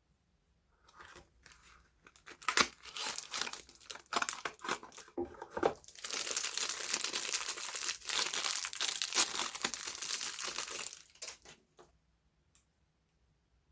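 Soap packaging being unwrapped by hand: the wrapper crinkles and tears in quick irregular crackles. The crackling grows denser and steadier in the second half, then stops a little before the end.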